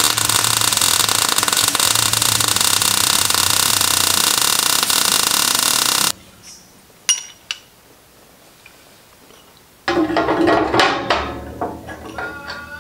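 Arc welding on the steel tube frame: a steady, dense crackle that cuts off abruptly about six seconds in as the arc stops. A few clicks follow, then metal parts clink and knock as they are handled.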